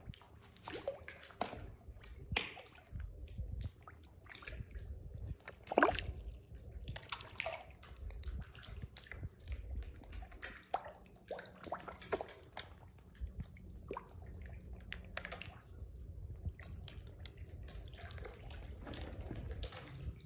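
Goldfish taking floating bread at the water's surface: irregular small plops, drips and slurps of water, with one louder plop about six seconds in.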